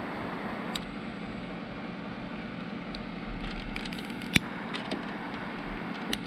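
Steady blowing hiss of a heat tool heating a solder-sleeve butt connector, shrinking the sleeve and melting its low-temperature solder, with a few short sharp clicks.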